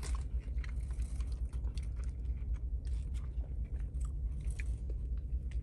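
A person chewing and biting food close to the microphone, with scattered small crinkles and clicks of a paper sandwich wrapper being handled, over a steady low hum.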